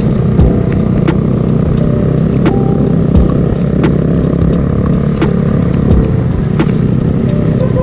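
Motor scooter riding along a wet road: steady engine and road noise with wind on the microphone, and scattered sharp taps throughout.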